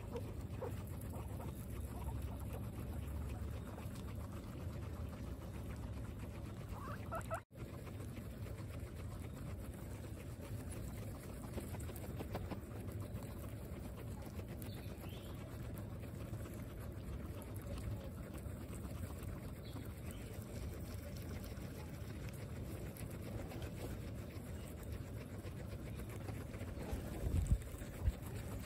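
Several guinea pigs munching fresh green grass close to the microphone: a steady, fine crunching and rustling of many small bites. There are a couple of louder knocks near the end.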